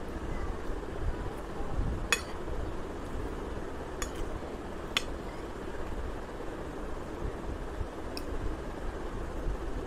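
A metal spoon clinking against a ceramic plate as rice is scooped up: four sharp clinks, about two, four, five and eight seconds in, over steady low room noise.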